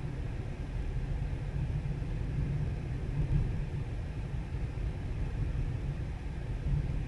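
Steady low rumble of road and tyre noise from a moving Tesla electric car.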